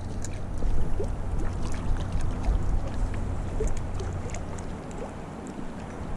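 Steady rush of flowing river water, with uneven low rumbling gusts of wind on the microphone.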